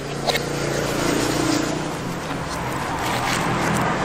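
A knife cutting through the dry fibrous husk of a roasted coconut, with a sharp click about a third of a second in, over a steady motor-vehicle-like rumble that swells slightly through the middle.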